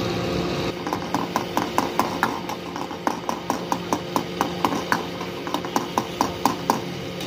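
A steel ladle clinking against a small iron karahi in quick, regular strokes, about four or five a second, as curry is stirred. The strokes start about a second in and stop near the end, over a steady mechanical hum.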